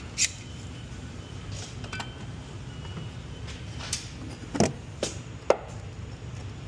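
A handful of sharp metallic clicks and knocks, spaced irregularly, from hand tools and rusty brake parts being worked loose on a car, over a steady low hum.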